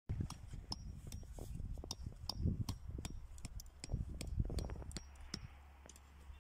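Hammer knocking a metal tent peg into the ground: a run of irregular sharp clicks and clinks with a few dull thuds, dying down after about five seconds.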